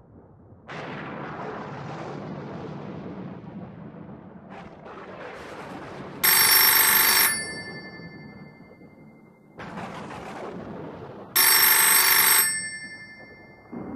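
A telephone bell ringing twice, each ring about a second long and about five seconds apart, over a steady background hiss.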